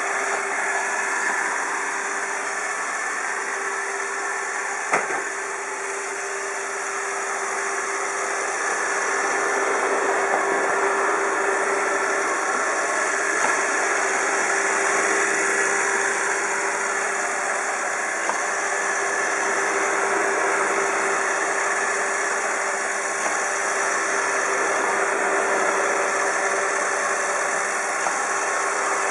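iRobot Roomba 780 robot vacuum running: a steady whirring motor noise with a steady hum, and a single sharp click about five seconds in.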